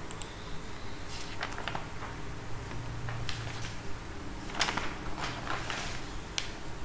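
A few sharp clicks and light knocks, scattered irregularly, from a computer mouse and small desk handling noises, over a steady low hum and hiss.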